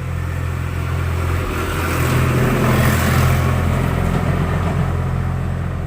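Steady low engine hum with a motor vehicle passing: its noise swells through the middle and fades away.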